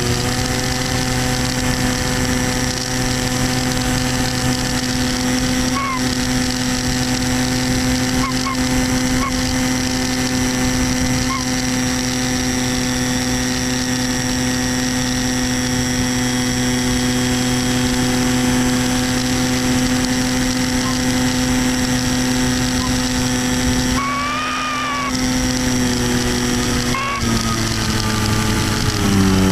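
Electric motor and propeller of a Multiplex Easystar 2 model plane, heard from the airframe, running with a steady high whine. The sound dips briefly about three-quarters of the way through, steps down slightly in pitch near the end, then starts to fall away.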